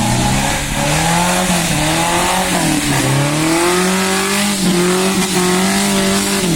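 Toyota 5K 1.5-litre four-cylinder engine in an off-road Suzuki Jimny revving hard under load. The pitch dips twice, then climbs and holds high.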